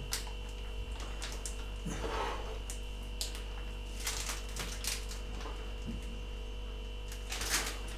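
Faint rustling and light clicks of a plastic piping bag being squeezed as mousse is piped into a glass, over a steady electrical hum.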